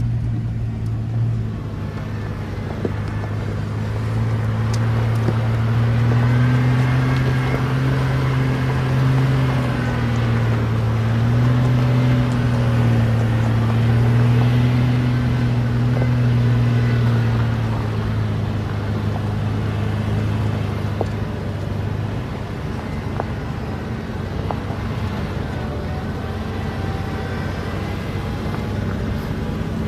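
Jeep LJ's straight-six engine running while driving a rough road towing a trailer, heard inside the cab with road and tyre rumble. The engine note grows stronger and wavers from about six seconds in, then eases back.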